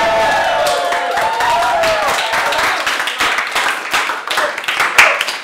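A group of students cheering and shouting, breaking into clapping about two seconds in, with one sharp loud clap near the end.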